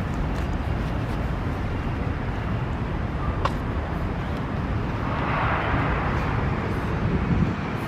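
Steady rumble of city traffic, with a swell of hiss about five seconds in that fades again about two seconds later.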